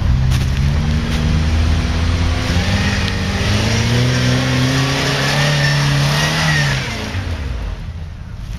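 Jeep Wrangler YJ engine revving hard as the Jeep drives up a slick mud trail, its tyres churning through the mud. The engine pitch climbs and holds high, then drops off about two-thirds of the way through and the sound fades as it goes past.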